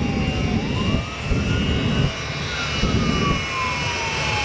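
Twin Rolls-Royce jet engines of a jet-powered fire truck running with a steady high whine, with deep rumbling surges about once a second as the afterburners fire. A siren wails over it, its pitch sliding slowly down and then quickly back up.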